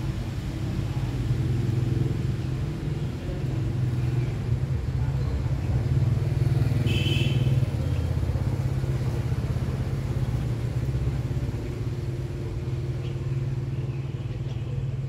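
A steady low motor rumble, like a vehicle engine running close by, swelling slightly in the middle. A brief high-pitched squeak is heard about seven seconds in.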